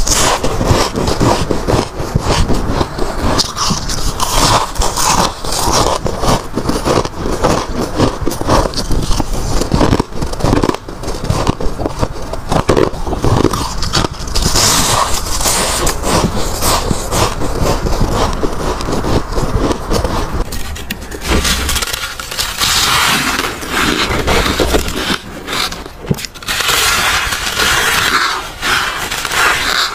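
Bites into soft, powdery freezer frost, crunching in quick crackly runs one mouthful after another. The sound changes about two-thirds through as a new bite begins.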